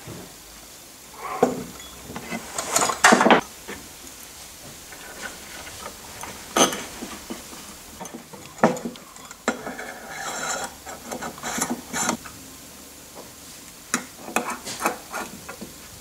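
Metal assembly parts handled on a wooden workbench, with a linear guide rail, T-nuts and an aluminium C-beam among them. The sound is a string of short clicks and knocks with brief scraping in between, and a cluster of quick clicks near the end.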